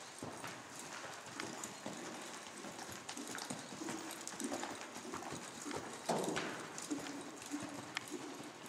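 Horse's hooves striking the sand footing of an indoor riding arena: a continuous run of soft hoofbeats at a slow gait. A louder burst stands out about six seconds in.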